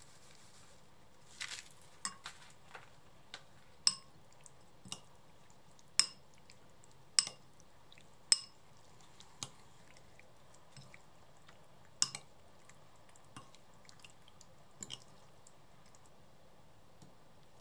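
Metal spoon clinking against a glass mixing bowl while stirring sliced raw fish in a liquid marinade: about a dozen sharp, irregular clinks, the loudest between four and eight seconds in and again near twelve seconds.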